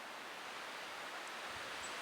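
Steady outdoor rushing noise, growing slightly louder, with a few faint high chirps.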